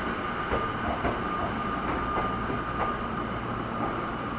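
Electric commuter train running along the platform on the rails, with a steady high whine and a few light wheel clicks.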